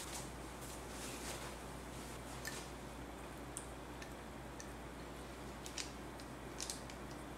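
Silicone pastry brush dipping into a ceramic bowl of beaten egg yolk and dabbing it onto raw poğaça dough balls, with a few scattered light clicks as it works.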